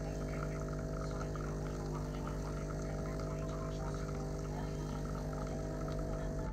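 A steady mechanical hum with several even tones, like a machine running at constant speed, which cuts off abruptly at the end.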